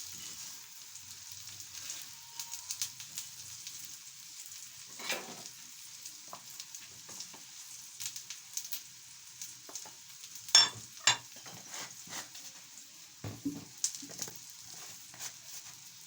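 Chips and egg frying in oil in a pan: a steady sizzle with scattered crackles, and two sharp clicks a little past the middle.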